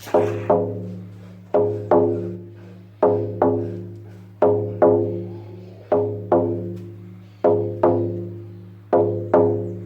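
Lakota healing drum beaten in a heartbeat rhythm: paired strikes, about seven pairs, one pair every second and a half or so, each stroke leaving a low ringing tone.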